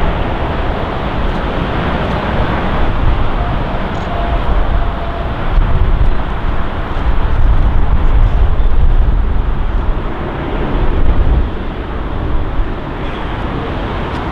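Four-engine Airbus A380 jet running, a loud continuous rumble with a deep low end. It grows louder through the middle and eases off near the end.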